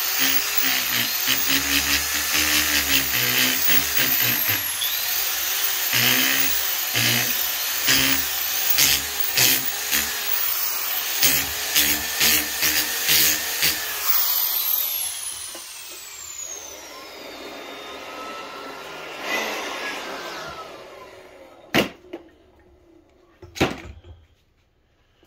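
Electric orbital sander running against charred wood boards, its whine and the grit on the wood rising and falling in level as it is pressed and moved. About two-thirds of the way through it is switched off and its pitch slides down as it spins to a stop, and two sharp knocks follow near the end.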